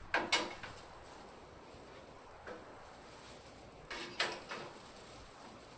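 Two short bursts of sharp clacking knocks, one at the start and another about four seconds later.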